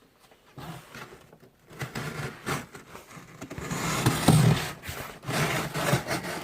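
Large cardboard shipping box being opened by hand: irregular scraping and rubbing of cardboard and packing tape, loudest about four seconds in.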